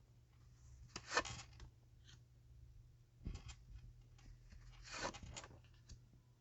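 Tarot cards being handled and laid out: three faint, short rustles and slides of card on card, about one, three and a half, and five seconds in.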